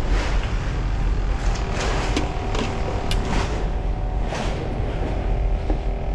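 A steady low motor hum runs throughout, with a few steady tones in it. Over it come several short knocks and clatters from a plastic cooler box lid and a landing net being handled.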